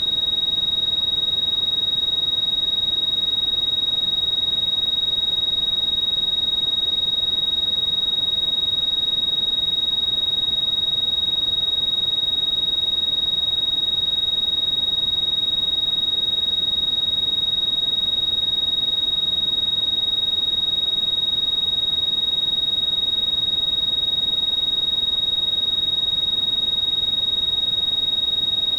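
A steady, high-pitched electronic sine tone, held without a break or any change in pitch, played as a tinnitus masking tone. A faint hiss runs underneath it.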